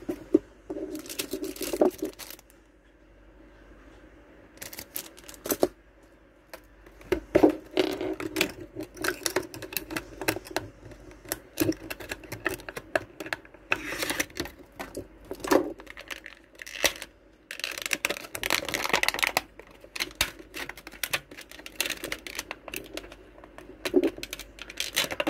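Clear plastic packaging crinkling and rustling as hands handle and unwrap small items, with irregular clicks and taps from the plastic.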